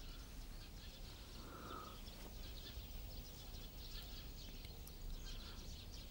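Faint outdoor ambience: small birds chirping here and there over a low steady hum.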